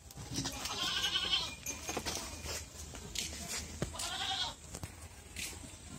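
A farm animal bleating twice, about a second in and again about four seconds in, each call high-pitched and quavering.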